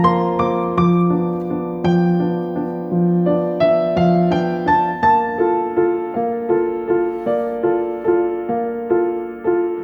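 Background piano music: a gentle, steady melody of evenly spaced notes, about two a second.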